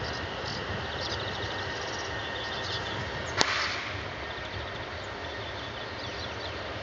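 Steady outdoor background noise with faint high chirps, and one sharp crack about halfway through, followed by a brief hiss.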